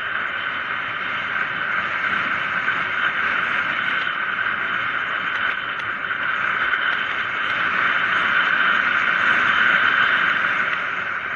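Steady rushing noise of a mountain bike descending a paved road at speed: wind over the camera and tyres rolling on asphalt. It grows louder about two-thirds of the way through as the bike picks up speed, then eases slightly near the end.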